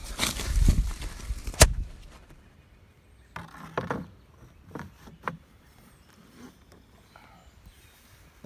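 Footsteps crunching through dry leaf litter for about two seconds, ending in a sharp knock. After a short lull, a few separate knocks and bumps come from a person shifting about in a canoe against the bank.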